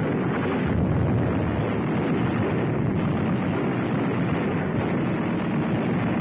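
Anti-aircraft fire and explosions running together into one continuous heavy rumble, with no separate shots standing out, on an old film soundtrack.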